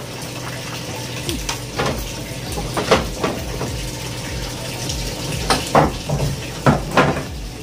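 Corrugated roof sheets knocking and cracking under a man's weight as he clambers across them, about six sharp knocks, most of them in the second half. Under them runs a steady rushing hiss with a low hum.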